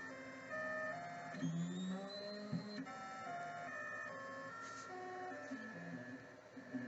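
Stepper motors of a belt-driven CNC hot-wire foam cutter whining at shifting pitches. The tones jump to a new pitch every fraction of a second as the axes trace a curved contour, with a rising glide a couple of seconds in.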